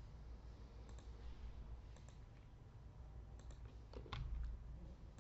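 A few computer mouse clicks, each a quick press-and-release pair, over a low steady hum. The loudest comes about four seconds in.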